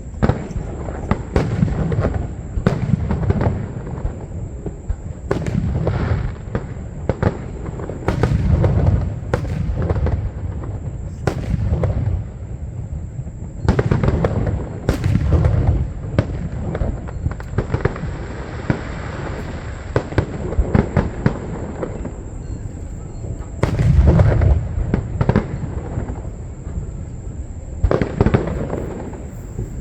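Aerial fireworks going off one after another, deep booms with sharp cracks and pops between them and bursts clustered every second or two, with a thinner spell in the middle.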